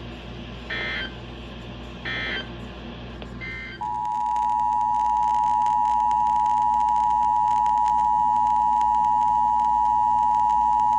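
Emergency Alert System tones. Three short buzzy digital data bursts come about 1.4 s apart, the brief end-of-message code that closes the alert. About 4 s in, a loud, steady single-pitch attention tone starts and holds.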